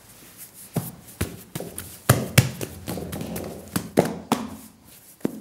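Hands knocking back and stretching a ball of ciabatta dough on a floured work table: a run of about ten irregular slaps and taps, with soft rustling between them.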